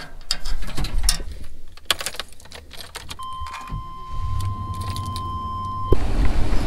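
Keys jangling and rattling, then a vehicle's engine running with a low rumble while a steady high tone sounds for about three seconds. The tone stops with a thump near the end, and the vehicle's rumble gets louder.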